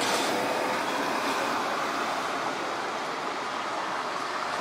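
Steady road and tyre noise of city traffic as an electric trolleybus drives away down the street, with a car following it; a faint steady hum fades out about half a second in.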